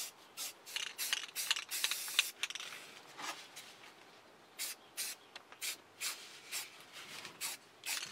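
Aerosol spray can of black paint hissing in short bursts: a busy run of sprays over the first three seconds, then quick separate puffs about two a second.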